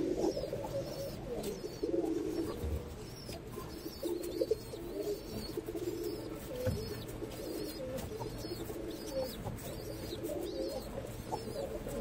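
Domestic pigeons cooing in repeated low bouts, with a steady series of faint high chirps running above them.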